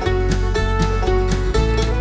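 Background music: an upbeat country or bluegrass-style tune with plucked strings and a steady beat.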